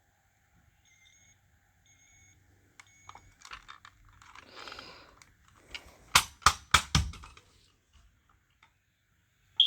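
A 9120B smoke alarm being handled: rustling and a run of clicks, then four sharp loud clicks in quick succession about six seconds in. Right at the end its piezo horn starts a loud, high-pitched beep.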